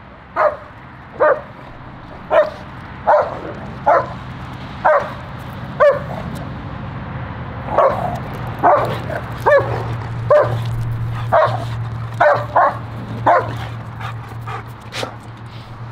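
German Shepherd barking repeatedly in short, sharp barks, about one a second, over a low steady hum that grows from about six seconds in.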